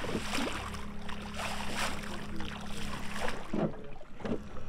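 A boat's motor humming: a steady tone cuts in just after the start and stops about three seconds in, over a low steady drone and irregular rushes of noise.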